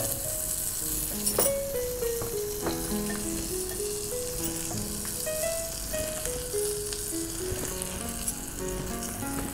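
Butter sizzling in a nonstick frying pan as bread toasts in it, a steady hiss with a couple of light knocks. Background music plays a slow melodic line over it.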